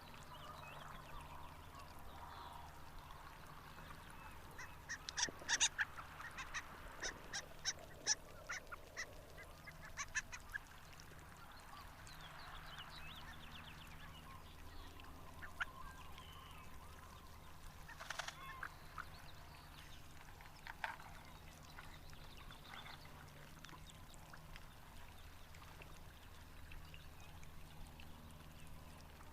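Harlequin duck calling: a quick series of short, high, squeaky calls about five seconds in, lasting several seconds, then a few scattered single calls later, over a steady low background noise.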